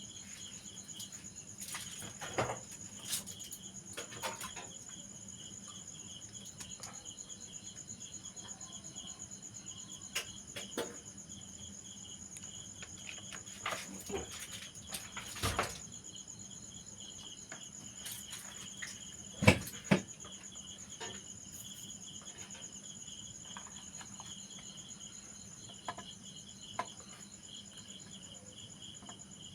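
Crickets chirping steadily in a fast, even pulse, with scattered clicks and taps of small handwork, the loudest a pair of sharp knocks about twenty seconds in.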